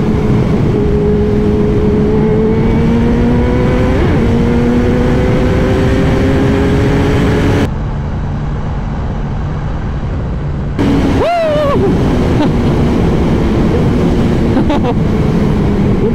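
Kawasaki Z1000 inline-four engine with a single exhaust, running under way with its pitch slowly climbing as the bike gathers speed. The sound goes muffled for about three seconds past the middle, then a quick rise and fall in pitch follows before it settles back to steady running.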